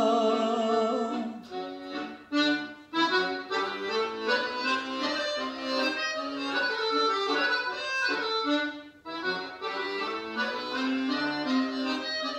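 A male singer holds the last sung note with vibrato for about a second. Then an accordion plays the instrumental interlude between verses of the folk song: a quick melody of short notes over sustained chords.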